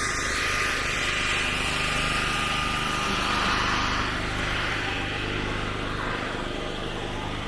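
An engine running steadily, with a hiss that swells over the first few seconds and fades by about four seconds in.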